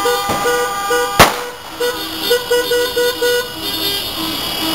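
Car horns honking in celebration: a held note at the start, then many short repeated toots from several cars. A single sharp bang about a second in is the loudest sound.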